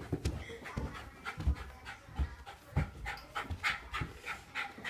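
A dog panting in quick, repeated breaths, with scattered low thumps of footsteps or phone handling.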